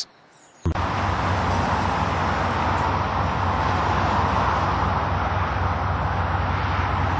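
Steady car noise picked up by a dashcam microphone inside the cabin: engine and tyre-on-road noise with a low hum. It starts suddenly about half a second in, after a brief near silence.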